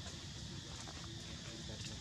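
Quiet outdoor ambience: a steady high-pitched drone over a low rumble, with a few faint ticks.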